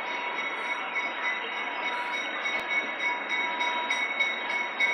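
Train rolling slowly along the track: running noise with a steady high squeal. From about three and a half seconds in, a regular ticking comes in at about three a second.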